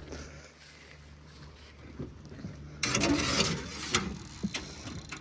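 Sheet-metal-covered wooden rabbit-hutch lid being opened: a noisy clatter lasting about a second, starting nearly three seconds in, then a few short knocks.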